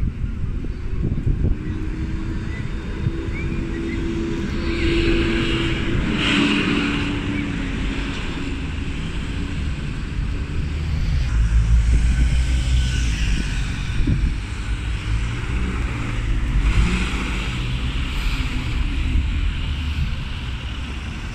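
Road traffic: cars, vans and a bus moving past in slow traffic, engines running and tyres swishing by in several swells. Wind rumbles on the microphone.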